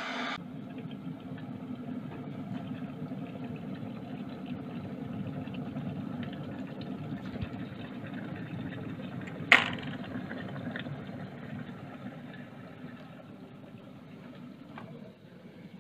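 Electric kettle heating water, a steady low rumble of water coming to the boil. A single sharp click comes about ten seconds in, after which the rumble slowly dies away.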